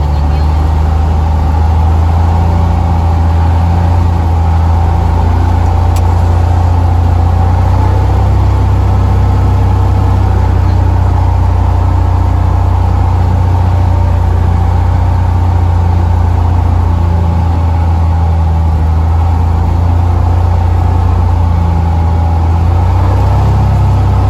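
Single-engine Cessna's piston engine and propeller droning steadily as heard inside the cockpit, on approach toward the runway.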